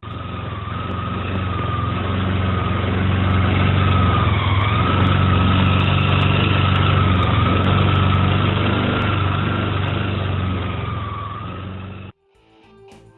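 Honda Giorno Crea AF54 scooter's small two-stroke engine running, with a wavering high-pitched squeal over it: the sign of a worn oil pump drive gear. It cuts off suddenly near the end.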